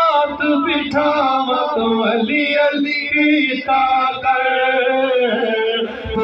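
A man singing a Punjabi manqabat (devotional poem in praise of Ali) in a chanting style, drawing out long notes whose pitch slides and wavers.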